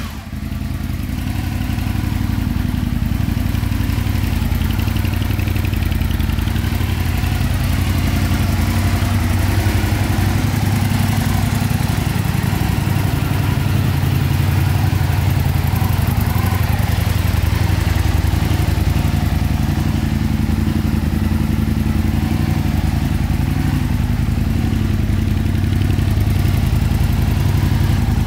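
Aprilia Tuono 1000's V-twin engine dropping back from a rev right at the start, then idling steadily.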